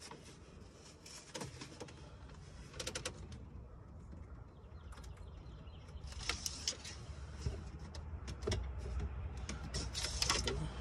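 Faint, scattered clicks and light scrapes of an engine oil dipstick being pulled from its tube and handled to read the level, over a low steady rumble.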